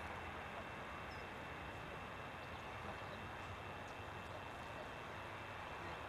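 Steady hiss of outdoor background noise with a faint, even high whine; no distinct sound stands out above it.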